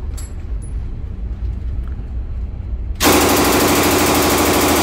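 M3 "grease gun" submachine gun in .45 ACP firing one long full-auto burst of about two seconds, starting about three seconds in. Before it, only a low steady hum.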